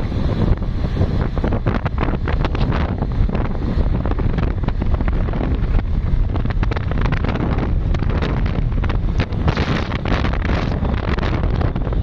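Wind buffeting a handheld phone's microphone on a moving vehicle: a loud, steady rush of low noise with constant gusty spikes.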